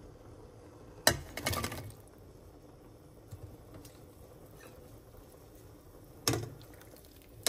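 A plate clinks against the rim of a stainless steel pot about a second in, and chunks of wax gourd slide and splash into the broth. Near the end a metal spoon knocks once against the pot.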